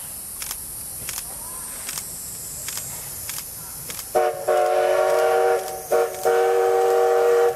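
Steam locomotive CK124 sounding its chord whistle as it approaches: a short toot, a long blast, another short toot and a second long blast, starting about four seconds in. Before that, faint, evenly spaced knocks.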